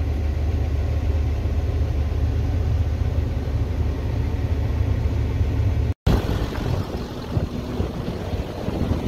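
Tractor engine running with a steady low drone, heard from inside the cab. After a cut about six seconds in, the rumble turns rougher and more irregular.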